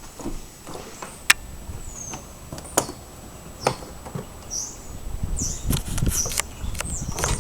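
A few sharp clicks and knocks, then short high bird chirps repeating from about halfway through, over a low rumble.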